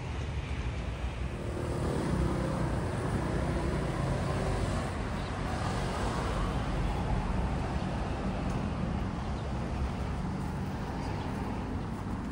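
Street traffic: a motor vehicle's engine and tyres rumble past, getting louder about two seconds in and fading after the middle, over steady road noise.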